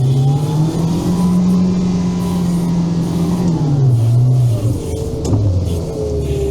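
Engine of a Veter 6x6 six-wheeled all-terrain vehicle pulling under load up a slippery slope. The revs rise at the start, hold steady, then drop about three and a half seconds in and settle lower, the way an automatic gearbox shifts up, which the driver says it did on the hill.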